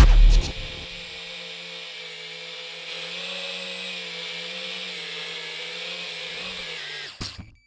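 Electric motors of a 6-inch FPV quadcopter running at a steady low throttle, a whine with a slight wobble in pitch, that cuts off with a couple of clicks near the end.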